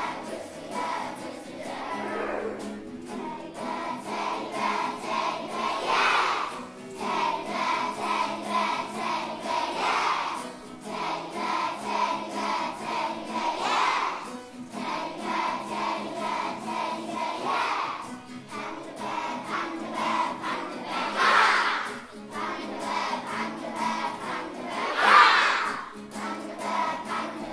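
A group of young children singing together over a recorded backing track, with louder group shouts of "Yeah!" several times, every few seconds.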